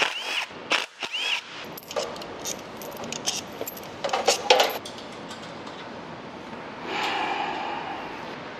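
Small steel valve-train parts clicking and clattering as roller cam followers (rocker arms) are lifted out of a BMW cylinder head by gloved hands, with a louder clatter about four seconds in and a second-long scraping noise near the end.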